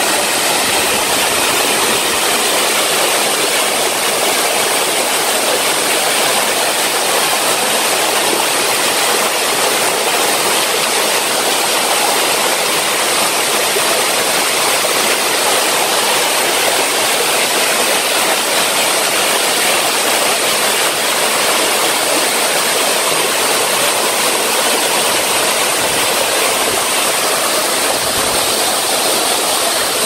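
Scatter Fall waterfall pouring: a steady, loud rush of falling water that does not let up.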